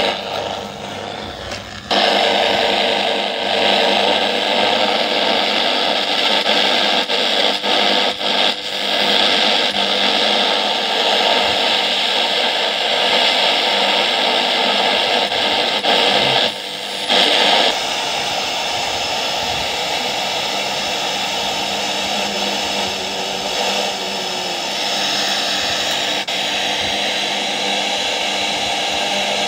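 Ramsons Popular 841 portable radio putting out loud static hiss with steady whistling interference tones, the sound of the set tuned off-station. The hiss jumps up sharply about two seconds in, breaks briefly around sixteen to seventeen seconds, then settles a little quieter.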